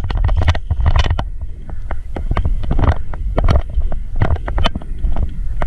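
Wind rumbling on an action camera's microphone, with irregular knocks and scuffs from the wearer moving on foot with his gear.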